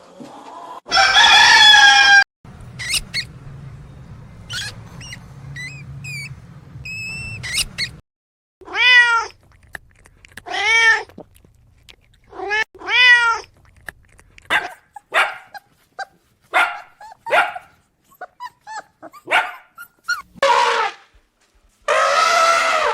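Domestic cat meowing over and over, a series of drawn-out meows that rise and fall in pitch, with shorter calls between them.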